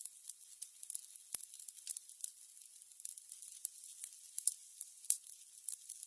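Burning candles crackling: a soft, high hiss with irregular small pops and clicks several times a second, and one sharper pop about a second and a half in.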